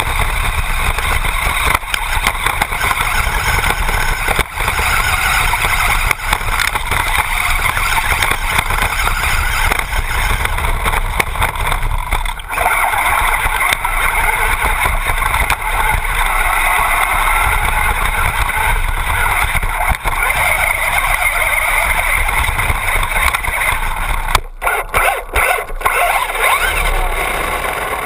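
Onboard sound of a Traxxas Bandit RC buggy with a brushless electric motor driving: a steady, loud run of motor and drivetrain noise over a low rumble, broken near the end by a few sudden cut-outs and knocks.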